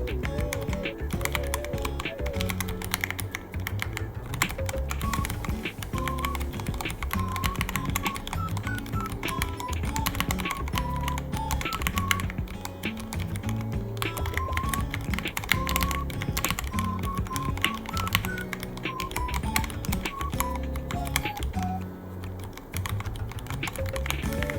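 Rapid, continuous typing on a Ducky One 3 mechanical keyboard, a dense run of irregular key clicks, over background music.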